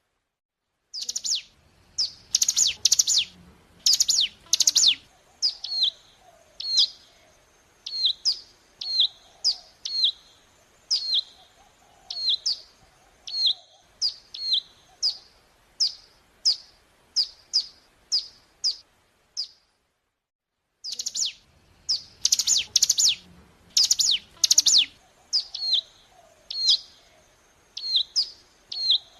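Ciblek gunung, a prinia, singing a long string of sharp, high, downward-slurred chips, about one or two a second. Dense bursts of notes come near the start and again just after a brief complete silence about two-thirds through, where the recording seems to loop.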